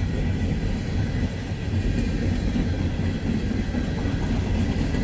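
Freight train cars rolling past on the track: a steady, low noise of wheels on rails that holds level throughout.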